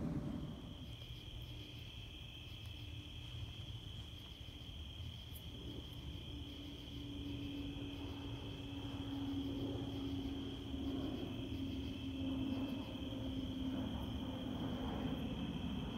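Crickets chirping in a steady high trill at night. A low steady hum joins about six seconds in and grows gradually louder.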